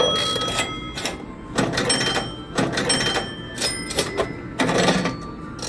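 Cash Express poker machine playing repeated bright electronic bell chimes as its bonus win is paid out and tallied.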